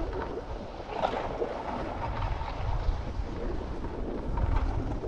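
Wind rushing over the microphone at speed, with the skis hissing and scraping over hard-packed snow as they are towed along.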